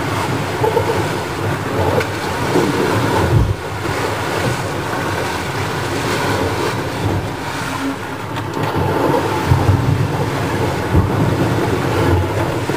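Sailing trimaran under way: a steady rush of wind and water against the hull, heard from inside the cabin, with a few low thumps.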